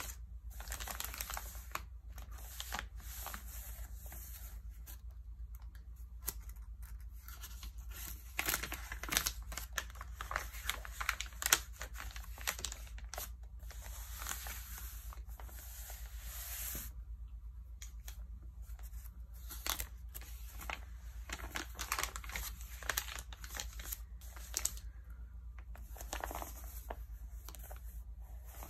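Glossy Vogue magazine pages crinkling and rustling under hands as they are pressed flat, smoothed and turned, with irregular crackles throughout that are sharpest about nine to twelve seconds in. A steady low hum sits underneath.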